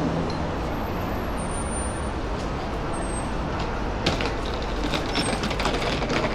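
City street ambience: a steady low rumble of road traffic, with a run of clicks and knocks starting about four seconds in.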